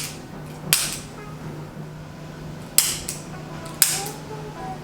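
Spring-loaded chiropractic adjusting instrument (activator) firing several sharp clicks, about one to two seconds apart, as it delivers low-force thrusts to the lower back.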